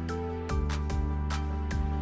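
Background music: sustained chords over a steady beat of light percussive strokes, with the chord changing about half a second in.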